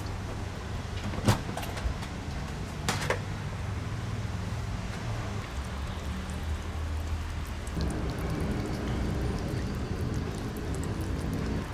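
Kittens lapping yogurt from a plate, a fine rapid wet ticking that comes in over the second half, over a low steady rumble. Two sharp knocks in the first few seconds.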